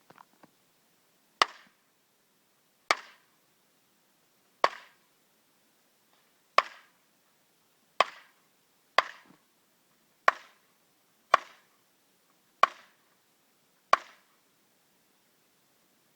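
Ten rifle shots fired in quick succession, one every one to two seconds, each a sharp crack with a short ringing tail.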